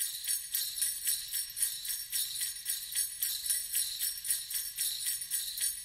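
Sleigh bells shaken in a steady rhythm, about four shakes a second, as part of a background music track.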